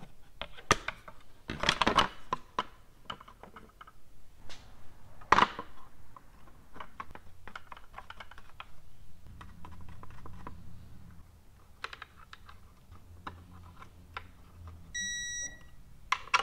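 Metal bolts and hand tools clicking and clinking as cover bolts are picked up and started into an engine's timing belt cover, with a faint low hum in the second half. Near the end a digital torque wrench gives a short high beep.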